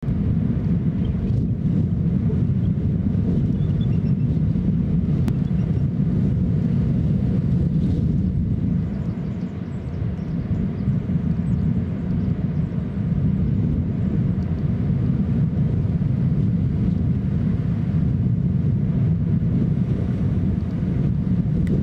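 Steady low wind rumble on an outdoor camera microphone, easing briefly about nine seconds in.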